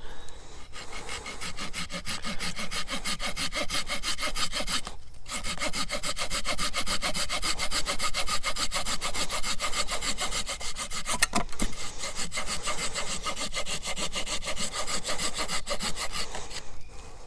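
Small folding hand saw with a wooden handle cutting through a seasoned hardwood branch, in quick, even back-and-forth strokes, with a short pause about five seconds in.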